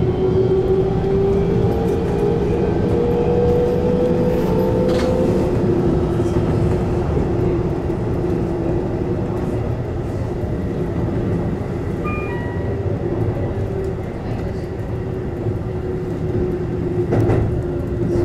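Keihan electric train running on the line: a motor whine rises in pitch over the first few seconds as the train accelerates, then settles into a steady whine over the rolling rumble, with a couple of short clicks.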